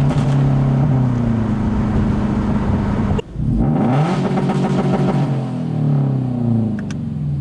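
Subaru BRZ's flat-four boxer engine accelerating through an unequal-length header with no catalytic converter or muffler, giving the uneven boxer rumble. The engine pitch climbs, breaks off sharply about three seconds in, climbs again and falls away near the end.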